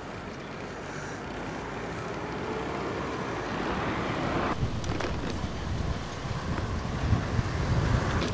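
A motor vehicle passes on the road: its noise builds for about four seconds, then drops off suddenly. Wind then rumbles on the microphone, growing towards the end.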